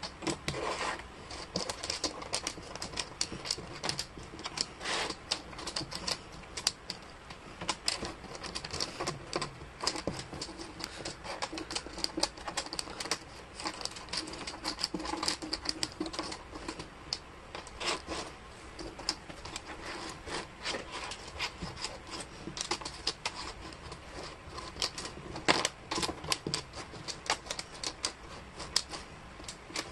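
Thin wooden jigsaw puzzle pieces clicking and clattering on a hard tabletop as hands slide, flip and sort them, a steady run of light irregular taps.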